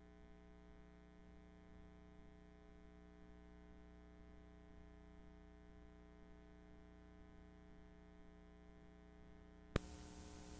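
Low, steady electrical hum from a VHS tape's playback over a blank stretch. Near the end a sharp click cuts in, and louder hiss with the hum follows as the tape runs off the recording into static.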